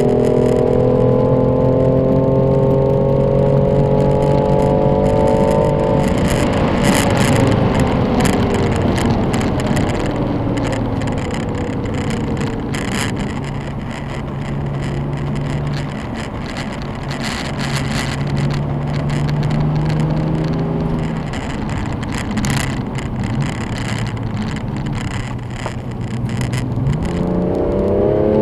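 BMW M4 engine running under load at high revs, then easing off about six seconds in with the pitch falling, running at lower revs through the middle, and revving up hard again near the end.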